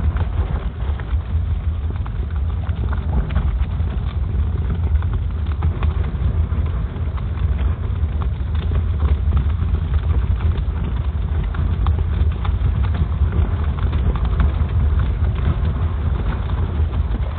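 Wind rumbling on the microphone while someone walks over wet, slushy pavement, footsteps ticking and scuffing on the thawing ground.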